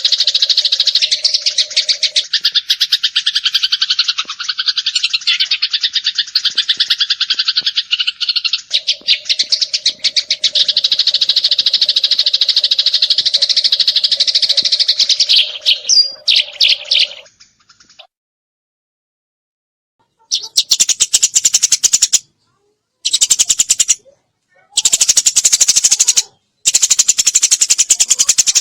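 Eurasian tree sparrow singing in very fast, continuous rapid-fire chirping. The chirping cuts out to silence a little past the middle, then returns in several short, rattling bursts with brief gaps between them.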